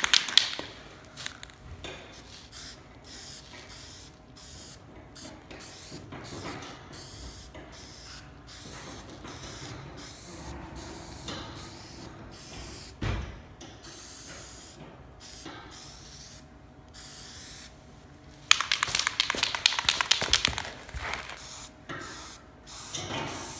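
Aerosol spray-paint can hissing in a run of short bursts, then one longer spray of a couple of seconds near the end.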